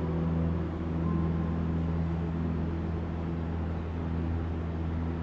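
Slow ambient background music: a steady low drone of long held tones with no beat.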